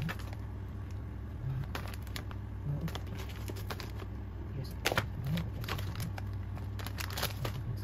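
Sealed plastic packets of frozen food being handled and shifted about on a tray, crinkling and rustling in short bursts, the loudest about five seconds in. A steady low hum runs underneath.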